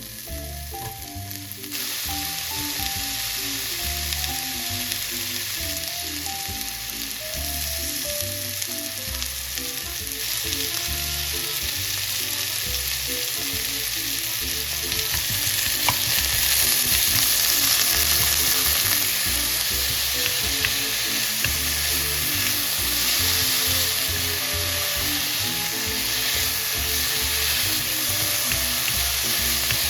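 Julienned potatoes frying in oil in a hot frying pan: a steady sizzle that starts about two seconds in and grows louder about halfway through, as the pan is stirred. Light background music plays underneath.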